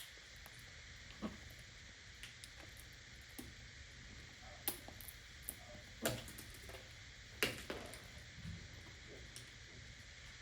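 A parrot's beak working at a nut shell: sharp, irregular clicks and cracks, about five clear ones with fainter ticks between, over a low steady hum.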